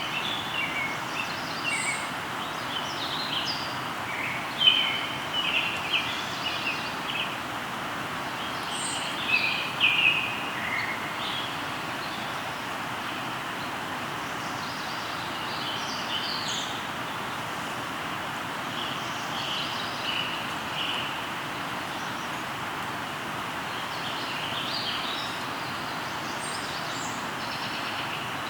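Flowing river with a steady rush of water, and songbirds chirping and singing over it in short phrases, busiest in the first ten seconds or so and again toward the end.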